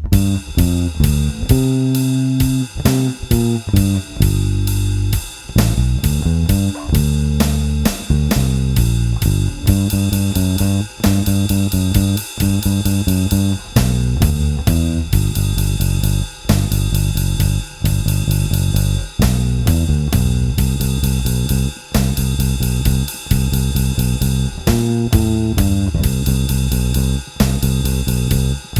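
Electric bass with a TV Jones Thunderblade neck pickup, run through a Seymour Duncan Studio Bass Compressor, playing a bass line along with a drum kit.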